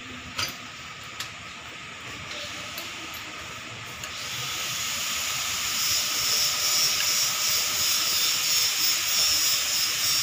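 A couple of light clicks, then from about four seconds in a steady hiss of compressed air that swells and holds.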